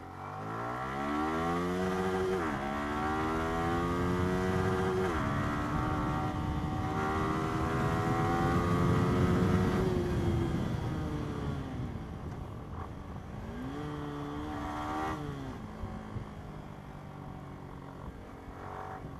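Yamaha R15 V3 single-cylinder motorcycle engine accelerating hard through the gears. The revs climb, drop at two upshifts a few seconds apart, then climb in a long pull before the throttle eases off. About two-thirds through the revs rise and fall once more, and the bike settles to a steady cruise, with wind rush throughout.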